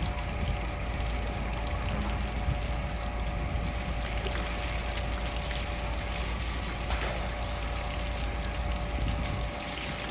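Water running and trickling steadily over a constant low hum.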